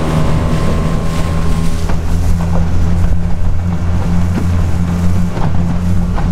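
Outboard motor on an inflatable dinghy running at a steady cruising speed, a constant low hum, with water rushing past the hull and wind on the microphone.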